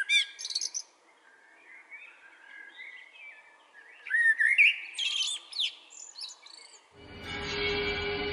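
Songbirds singing in clear whistled phrases with quick rising and falling notes, loudest at the start and again about four seconds in. About seven seconds in, a steady droning music comes in.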